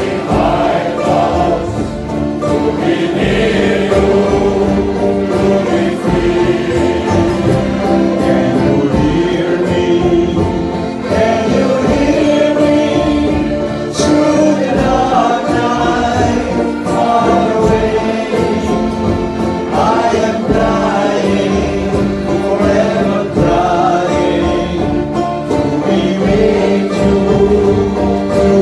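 Male sea-shanty choir singing a song with accordion accompaniment and a one-string box bass.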